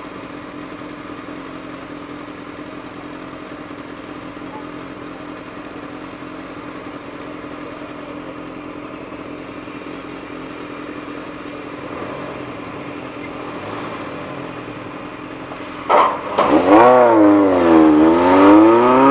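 Honda CBX 750's air-cooled inline-four engine running steadily with a held hum. About sixteen seconds in it is revved hard, jumping sharply in loudness, its pitch sweeping down and then back up.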